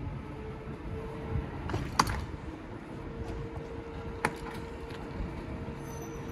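Station platform ambience beside a standing passenger train: a low rumble with a faint steady hum, and two sharp knocks, about two seconds in and about four seconds in.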